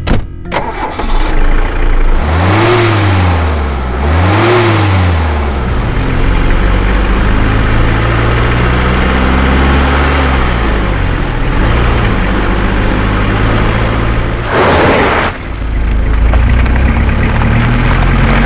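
1985 Hindustan Contessa Classic sedan's engine starting with a brief crank, blipped up and back down twice, then idling steadily. Near the end there is a short burst of noise.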